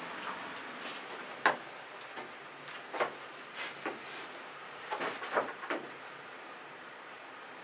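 Irregular sharp knocks and clicks of things being handled and set down, the loudest about one and a half seconds in and a quick cluster around five seconds in, over a steady hiss.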